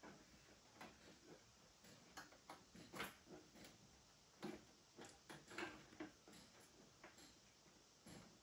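Faint, irregular clicks and light knocks of a hand and USB plug fumbling against the plastic back of a wall-mounted TV while feeling for its USB ports.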